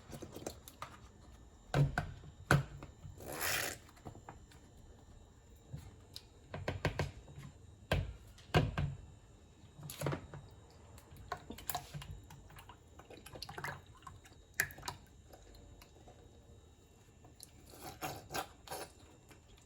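Liquid cream poured from cartons into a bowl, with scattered knocks and clicks as the containers are handled and set down.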